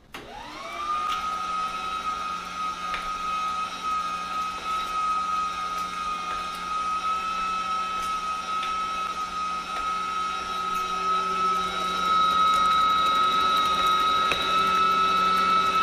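Small electric meat grinder starting up, its motor whine rising over the first second, then running steadily as venison is pushed through it with the plunger.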